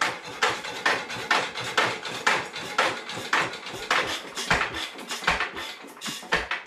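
1920s 2-horsepower Headless Witte hit-and-miss engine turning over after being cranked, with a sharp metallic clack about twice a second.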